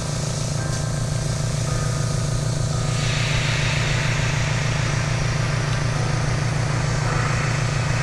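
Airbrush setup running: a small air compressor's steady low hum under the hiss of air and paint spraying from a gravity-feed airbrush, the hiss growing louder about three seconds in.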